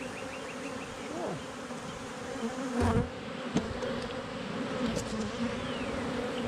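Honeybees buzzing steadily around an open hive as its frames are lifted out, with a few short knocks about three seconds in.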